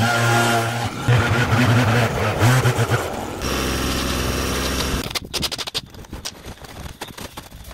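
Small petrol garden-tool engines: a handheld leaf blower running and revving unevenly, then a lower steady engine drone that cuts off about five seconds in. After it come scrapes and light knocks.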